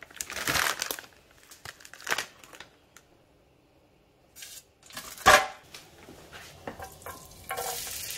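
Plastic bag of frozen okonomiyaki crinkling as it is handled and a frozen pancake is pulled out, with a single sharp knock about five seconds in. Near the end a steady sizzle begins: garlic and ginger frying in oil in a pan.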